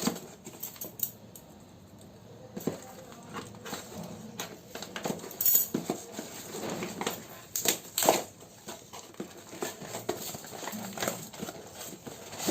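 A product package being handled and opened by hand: irregular clicks, knocks and rustling of packaging.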